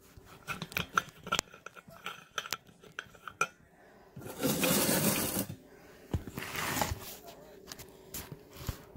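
Kitchen clatter: a string of light clinks and knocks of dishes and utensils on the counter, then two longer rubbing, scraping noises about halfway through, the first the loudest, as the phone doing the filming is moved and propped up.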